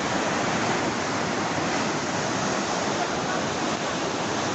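Steady rushing of a fast, muddy flash-flood torrent pouring over and eating away a road edge.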